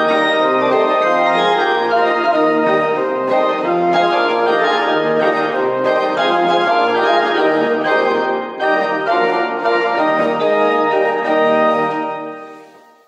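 Church organ playing a hymn tune in full, steady chords. The last chord is released about twelve seconds in and fades away.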